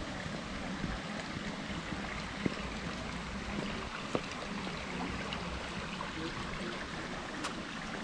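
Steady running water of a small stream, with a couple of faint clicks about two and a half and four seconds in.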